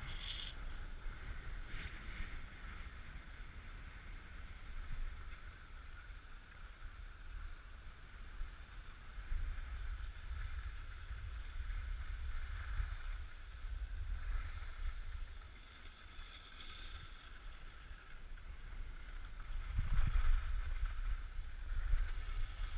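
Skis sliding and scraping over packed, groomed snow, a steady hiss, with wind rumbling on the microphone. The rumble swells and is loudest about twenty seconds in.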